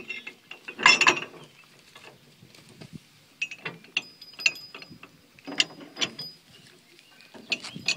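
Metal coupling chains and hooks on a narrow-gauge railway carriage clanking and rattling as they are handled. There are several separate clinks and clanks, the loudest about a second in, with a few more bunched together later.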